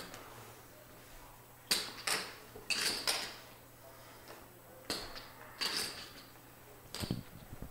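Poker chips clicking against each other as they are handled and counted. There are several short, sharp clacks, some in quick pairs, spread a second or so apart.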